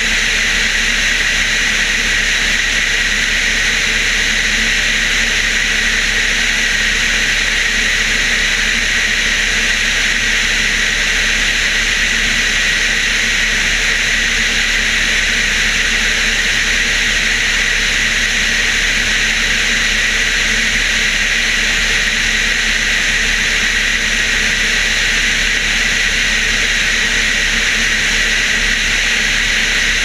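Pipistrel Alpha Trainer light aircraft in cruise: the Rotax 912 flat-four engine and propeller run at a constant steady drone under a loud rush of airflow over the wing-mounted microphone.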